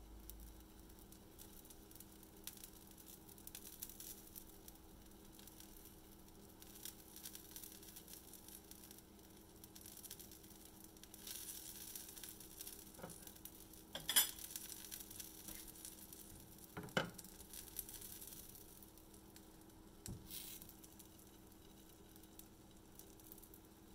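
Banana pancake frying in a nonstick pan, a faint crackling sizzle, with a few sharp clicks of utensils or the pan about halfway through.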